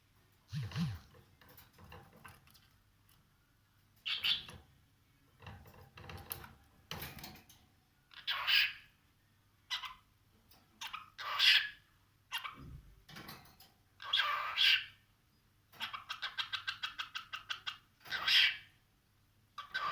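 Cockatiel calling: a series of short, scratchy calls and chirps with pauses between them, then a fast run of quick repeated chattering notes near the end.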